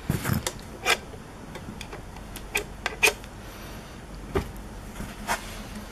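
Handling clicks and knocks from a metal mobile DVR unit as its hinged SD-card cover is opened: a low thump, then about six separate sharp clicks spread unevenly over several seconds.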